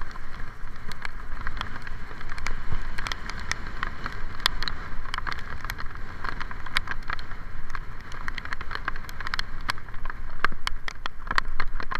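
Bicycle ride in heavy rain, heard on a rain-spattered bike-mounted camera: a steady rush of wind and wet road rumble, with many sharp ticks of rain striking the camera.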